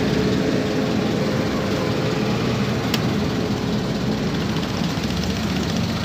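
A boat engine running steadily at an even pitch.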